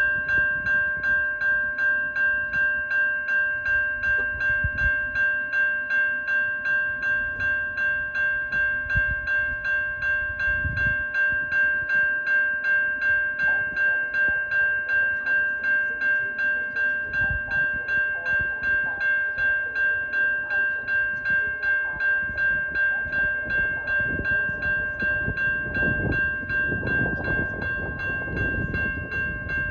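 Railroad grade-crossing bell ringing in a steady, even rhythm of about three strokes a second, with a low rumble building near the end.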